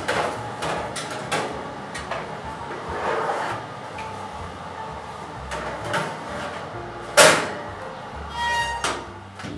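Metal baking tins knocking and sliding against the wire racks of an oven as they are loaded in, a run of clunks and scrapes. The loudest is a sharp clank about seven seconds in, followed near the end by a brief metallic rattle and ring.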